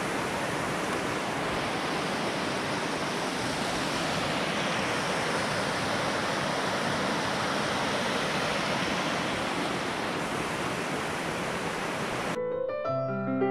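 Steady rush of a shallow, rocky river running over stones. Near the end it cuts off suddenly and music with piano-like notes begins.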